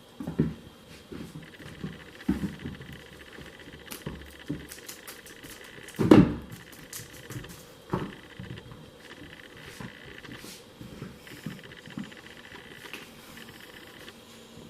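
A pet playing with a feather wand toy: scattered light thumps, pattering and rustling, with a sharper knock about six seconds in.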